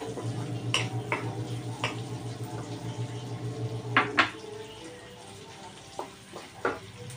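Wooden spatula scraping and knocking against a metal wok as meat is stir-fried, with about seven sharp knocks, two of them close together about four seconds in. A light frying sizzle underneath.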